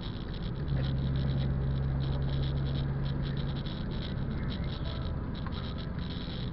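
Car interior noise while driving in rain on a wet road: a steady low engine hum with tyre hiss and a light, uneven patter of raindrops.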